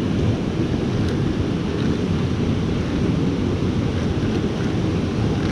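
Small creek's water rushing steadily over rocks.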